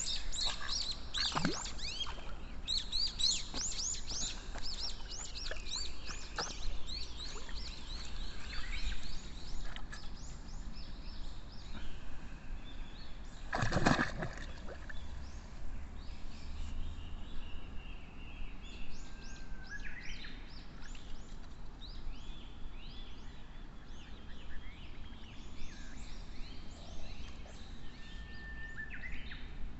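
Small birds chirping in many quick, high calls, busiest in the first ten seconds and thinner later, with one louder sudden sound about fourteen seconds in.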